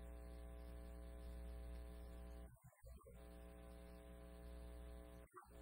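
Faint steady electrical hum with no speech. It cuts out briefly about two and a half seconds in and again near the end.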